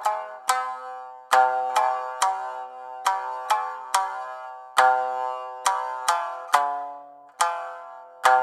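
Background music: a plucked string instrument picking out a melody, about two notes a second, each note struck sharply and quickly fading.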